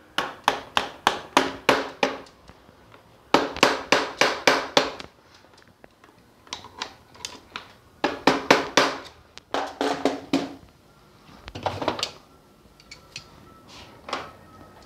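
A hammer tapping a bolt out from underneath an electric skateboard's front suspension: quick runs of ringing metal taps, about four a second, in several bursts with short pauses between, fainter near the end.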